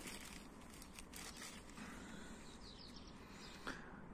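Quiet outdoor ambience with faint rustling of plastic sheeting as strawberry seedlings are handled, a few faint bird chirps about two and a half seconds in, and a small click near the end.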